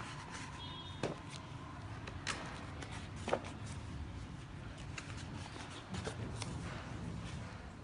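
Heavy pages of a wallpaper sample book being turned and handled: a few sharp slaps and rustles of paper and plastic, the loudest about three seconds in, over a low steady rumble.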